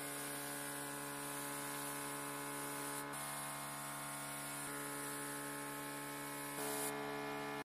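Gravity-feed paint spray gun hissing steadily as it sprays paint onto a truck bumper, over a steady hum. The hiss cuts off shortly before the end.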